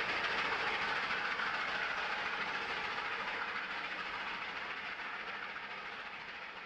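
Train hauled by a Shay steam locomotive running along the track, a steady rumble that gradually fades away.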